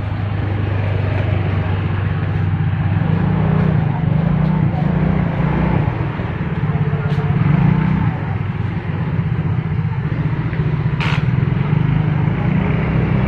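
A steady low motor hum, like an engine running without a break, over general outdoor market noise, with one sharp click about eleven seconds in.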